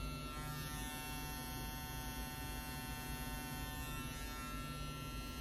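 Gamma+ Golden Gun hair clipper running at a steady buzz, with an even hum and a fine high whine that hold unchanged.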